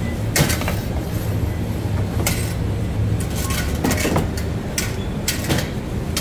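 Bakery machinery running with a steady low hum, with about five short clinks and scrapes over it.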